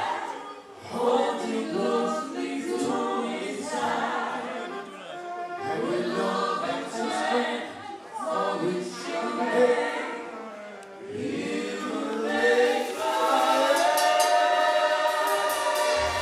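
A male lead singer and a group of female backing singers singing together over a PA, the voices carrying the music with little instrumental backing heard. Near the end the voices hold longer, steady notes.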